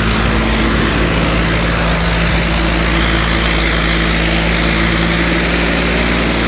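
John Deere 5310's three-cylinder diesel engine running steadily at high revs under heavy load, the tractor pulling against another tractor through a tow bar in a tug-of-war.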